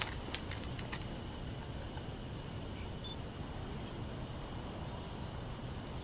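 Outdoor ambience: a steady low rumble with a sharp click about a third of a second in, then a few faint, very short bird chirps.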